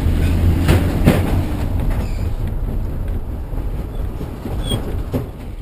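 Inside a moving minivan: a loud, steady low rumble of engine and road, with rattling and a few sharp knocks, two about a second in and one near the end.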